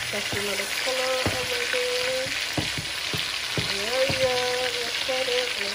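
Chuck roast searing in hot oil in a metal pot: a steady sizzle, with a few short squeaky tones and knocks as the meat is turned with a fork.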